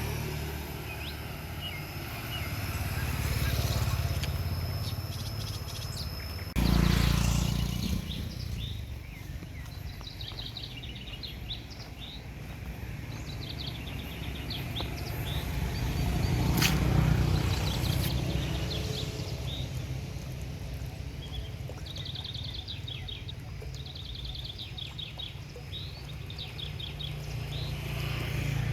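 Small birds chirping in short, quick trills again and again, over a low rumble that swells and fades, with a sudden loud low burst about six and a half seconds in.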